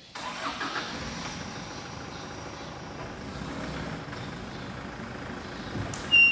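A motor vehicle engine running steadily, starting abruptly. Near the end comes a sharp click followed by a short high beep.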